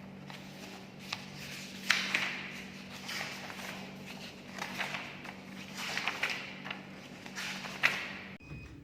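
Footsteps, roughly one a second, each a short cluster of scuffs and taps, over a steady low hum. Both stop abruptly near the end.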